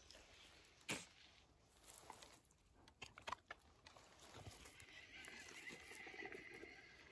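Dogs chewing and crunching treats, faintly, with a few sharp crunches in the first half. A faint steady high tone runs through the last two seconds.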